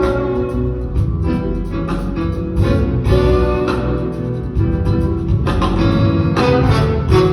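Live theatre band playing an instrumental passage, with guitar strumming and plucking in front.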